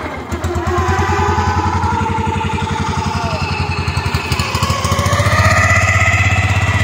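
Small engine of a wooden passenger longboat running with a rapid, even putter. It picks up revs and grows louder about five seconds in as the boat gets under way.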